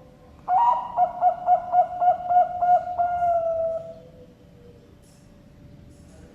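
Zebra dove (Bangkok perkutut) cooing: a quick run of about nine pulsing coo notes, ending in one long, slightly falling note.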